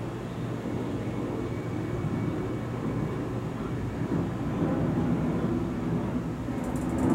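Thunder rumbling low and long, slowly growing louder, with no sharp crack.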